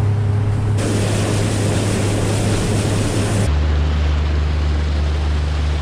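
Outboard motor pushing an inflatable boat along at speed: a steady low drone with the rush of water and wind over it. The rush is loudest from about one second in until about three and a half seconds in, when the drone drops to a lower note.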